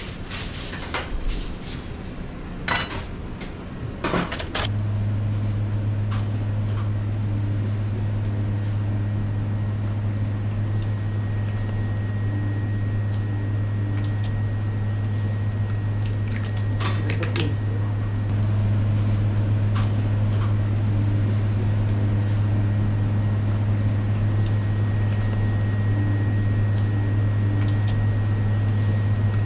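A few knocks and taps of a knife on a plastic cutting board, then a steady low machine hum sets in abruptly and takes over, growing louder about two-thirds of the way through. A few faint clicks of handling sound over the hum.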